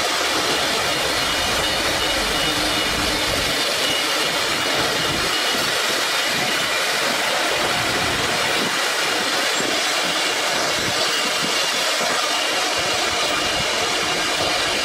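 Four-spindle CNC wood router (STYLECNC S1-IV-2) running, with a spindle cutting into a wooden board: a steady high whine over a steady rush of cutting noise.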